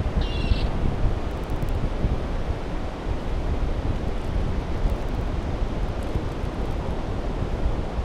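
Ocean surf rushing steadily with wind buffeting the microphone. A short high bird call sounds about half a second in.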